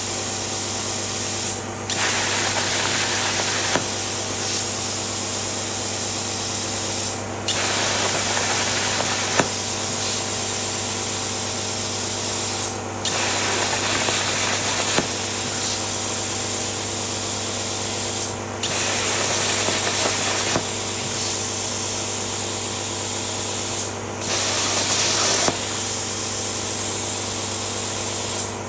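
CNC plasma cutter torch cutting sheet metal: a loud, steady hiss of the arc and air jet over a low hum. About every five seconds the hiss drops out briefly and starts again suddenly as the torch stops and restarts on the next cut.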